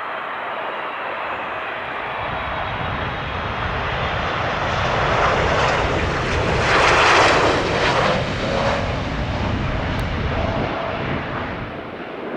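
Engines of a large aircraft passing close by: the noise builds over several seconds, is loudest about seven seconds in, then fades.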